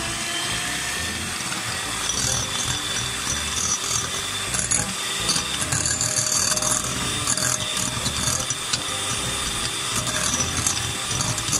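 Electric hand mixer running steadily, its twin beaters whipping eggs into a froth in a glass bowl, with irregular clicking and rattling from the beaters.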